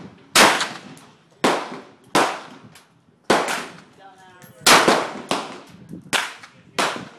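AR-15 rifle firing single shots in semi-automatic, about eight sharp reports at uneven intervals of roughly half a second to a second, each with a ringing tail.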